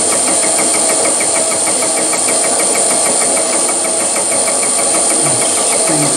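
Milling machine fly cutter taking a light facing cut across a metal plate, with the spindle motor, its variable frequency drive and the power feed running. A steady machine noise carries a faint regular tick about five times a second.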